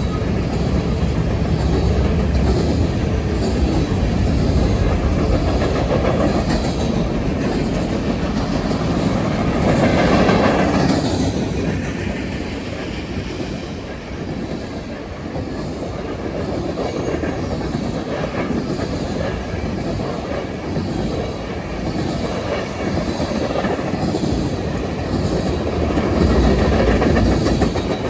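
Norfolk Southern mixed freight train rolling past, its wheels clicking and clacking over the rail joints in a steady rumble. The sound swells louder twice, about ten seconds in and again near the end.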